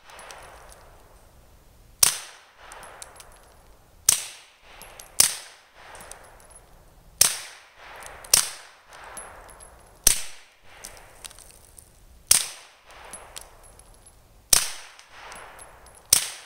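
Suppressed Walther PPQ pistol firing nine shots at an uneven pace, about one to two seconds apart, each a sharp crack with a short fading echo.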